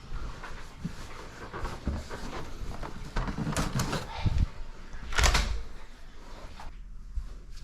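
Handling noises in a small room: scattered knocks and rustling, with a louder thump about five seconds in.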